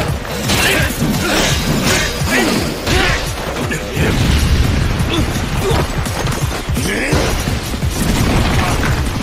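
Anime fight sound effects: a dense run of hits, crashes and crumbling debris over a music score.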